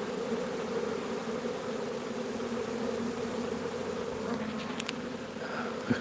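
Steady hum of a honeybee swarm as the bees march in over the ramp and into the hive box.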